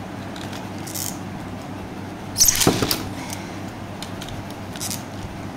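Beyblade Burst spinning tops, Guilty Luinor against Geist Fafnir, battling in a plastic stadium. There is a loud clatter about two and a half seconds in, with fainter clicks before and after it.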